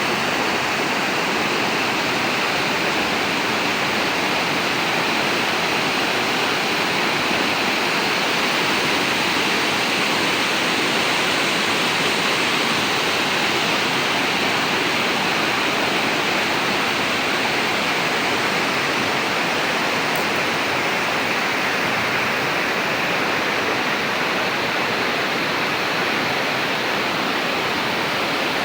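Waterfall rushing: a loud, steady, unchanging noise of falling water.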